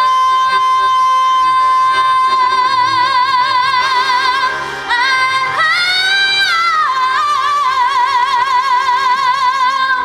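A woman singing long held notes with vibrato over quiet backing music. About halfway through the pitch steps up, then comes back down to the first note.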